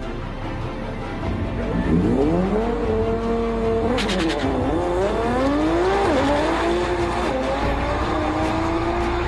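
Twin-turbo V6 of a 1500 hp R35 Nissan GT-R accelerating hard from a standing start: the note climbs steeply and holds high, then drops and climbs again at each gearshift. A brief crackle comes about four seconds in.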